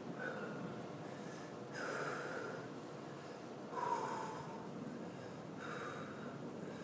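A man breathing out hard in short puffs, about every two seconds, his mouth burning from 13-million-Scoville chilli extract.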